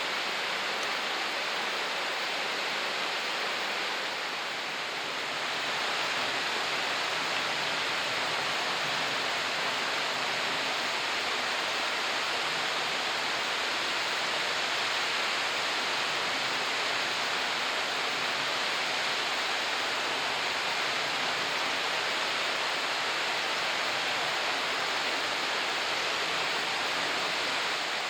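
Marugami Waterfall, a 76 m three-tiered waterfall, falling: a steady, even rush of water that dips slightly for a moment about four seconds in.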